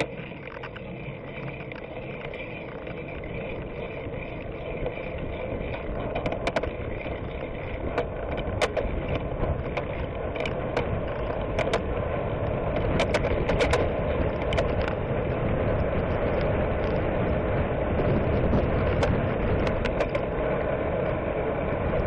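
Wind and road noise from riding a bicycle along a street, growing gradually louder, with scattered sharp clicks and rattles.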